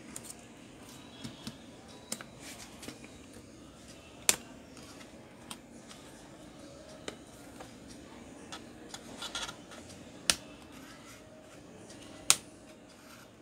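Sharp plastic clicks and snaps from an HP EliteBook 840 laptop keyboard being pried out of its frame with a small tool. Three louder clicks come about 4, 10 and 12 seconds in, with lighter taps and ticks between.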